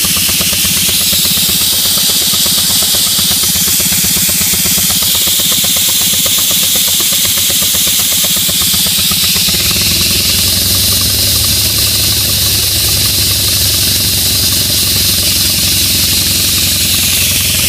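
Smith Gordon Model A air compressor running with a fast, even pulsing beat under a strong, steady hiss. About ten seconds in, its low running note changes and grows deeper.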